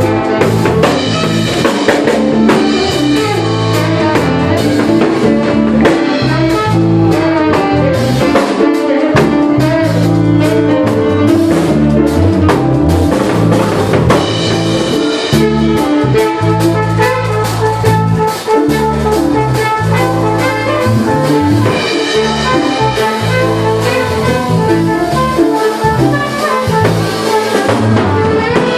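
A jazz fusion band playing live through a full passage, with drum kit and a moving low line of notes under pitched lead lines.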